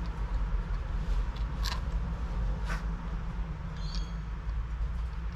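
Steady low rumble with two light clicks of small metal parts being handled, about two and three seconds in, and a brief high chirp near four seconds.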